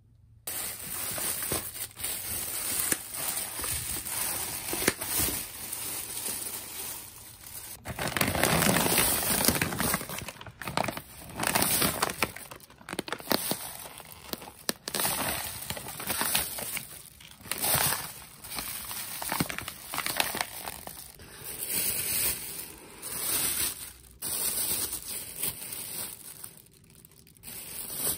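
Plastic bags and food packaging crinkling and rustling in repeated, irregular bursts as groceries are handled and unpacked, loudest about eight to ten seconds in.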